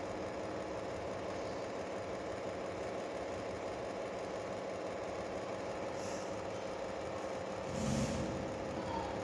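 A steady mechanical hum runs throughout, with a short louder noise about eight seconds in.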